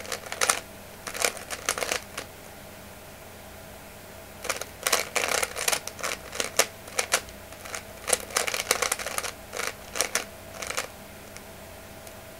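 Plastic 3x3 Rubik's-type speed cube being turned fast, its layers clicking and clacking in rapid runs as last-layer algorithms are executed: a short burst, a pause of about two seconds, then a long fast run of turns that stops about a second before the end.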